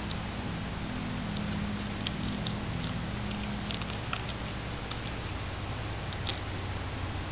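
Netherland dwarf rabbit chewing a romaine lettuce leaf: small, crisp, irregular crunches, over a steady low hum and hiss.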